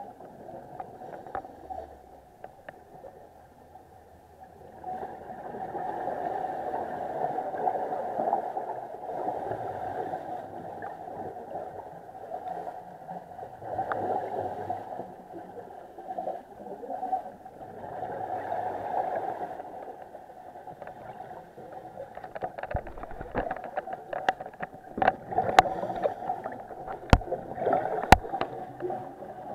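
A scuba diver breathing through a regulator underwater, the exhaled bubbles gurgling out in swells every few seconds, heard muffled through an action camera's waterproof housing. Near the end several sharp clicks and knocks sound.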